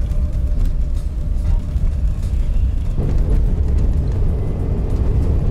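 Steady low rumble of engine and tyres heard inside the cabin of a moving vehicle on a packed-snow road. The rumble grows fuller and rougher about three seconds in.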